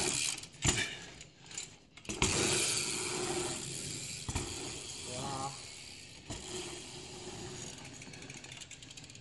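Bicycles riding dirt jumps: tyres rolling over packed dirt with a few knocks from landings and bike impacts. Near the end comes the rapid clicking of a freewheel hub as a rider coasts.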